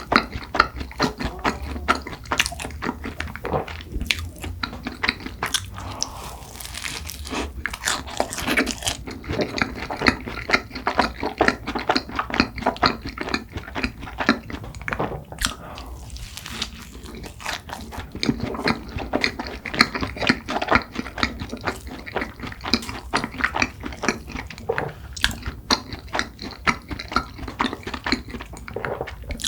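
A person biting into and chewing cronuts (croissant doughnuts): many quick crisp crunches and crackles of flaky laminated pastry, coming irregularly throughout.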